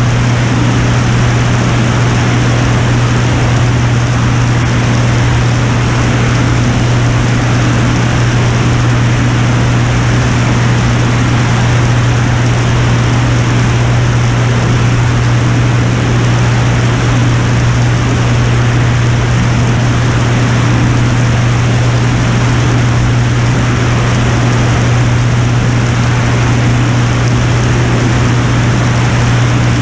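Piper Turbo Saratoga's engine and propeller in steady level flight: an even, unchanging drone with a strong low hum under a broad rushing noise.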